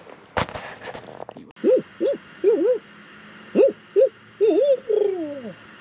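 A brief clatter, then an owl hooting: a quick series of about eight rising-and-falling hoots, ending in a longer hoot that slides down in pitch.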